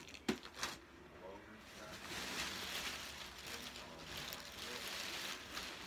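Handling noise as gifts are moved about: a few light knocks about half a second in, then a rustle of paper or fabric lasting about three seconds.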